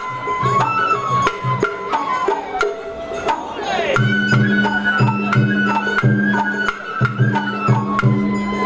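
Festival float music (hayashi): a high bamboo-flute melody stepping from note to note over low drum beats in a quick, even rhythm, with sharp clicking strikes of percussion. It grows louder about four seconds in.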